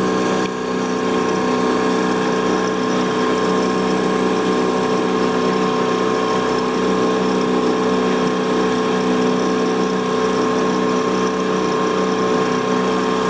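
Small boat's outboard motor running steadily under way, holding one even pitch.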